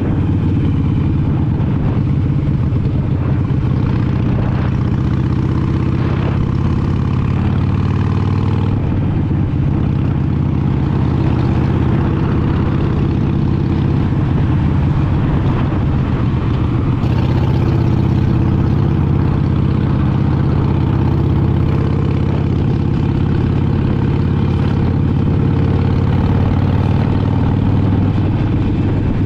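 Harley-Davidson Sportster Iron 883's air-cooled 883 cc V-twin engine running steadily at cruising speed, heard from the rider's seat.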